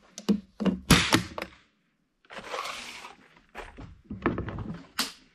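Knocks, clicks and clatter of a small box and a rifle being handled on a wooden shooting bench, with a short rattling rustle in the middle.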